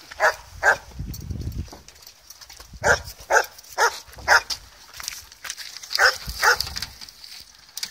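A small dog barking: eight short barks in three runs of two, four and two, about two barks a second.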